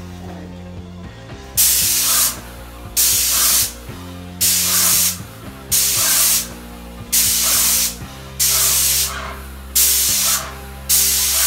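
Graco 390 airless paint sprayer gun hissing in short bursts, about eight in all, each under a second and coming roughly every second and a half, as the trigger is pulled for each pass across the wall. Background music plays underneath.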